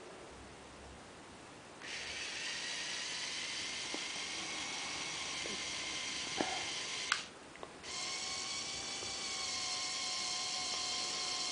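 Small electric motors and plastic gear trains of a Lego bulldozer model whirring with a steady whine. It starts about two seconds in, cuts out briefly after a couple of clicks around the middle, then starts again at a slightly different pitch.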